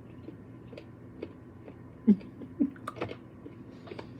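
Soft chewing and wet mouth clicks, with two brief hummed "mm" sounds about two seconds in.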